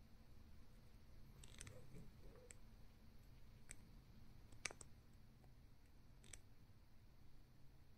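Near silence with about six faint, sharp clicks scattered through, the loudest a little past halfway.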